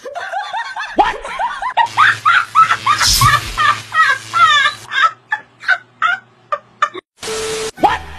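Loud, high-pitched cackling laughter in rapid bursts that slow to a few separate cackles, followed by a short burst of hiss near the end.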